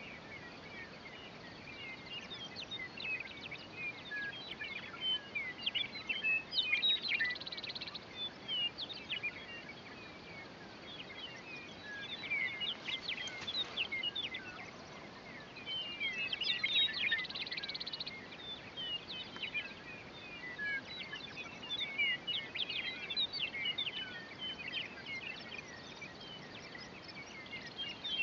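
Meadowlarks singing on the open grassland: repeated bouts of short, slurred, fluting phrases, several birds overlapping, coming every few seconds.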